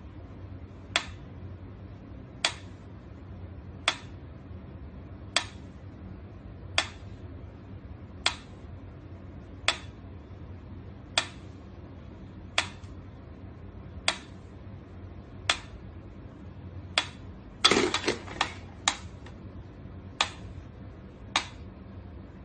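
Mechanical pendulum metronome ticking slowly, one sharp tick about every second and a half. Near the end, a louder knock and a quick flurry of clicks break the rhythm before the ticking goes on.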